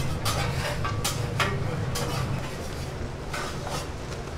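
Food-stall ambience: a steady low hum with scattered short clinks and clatter of dishes and utensils.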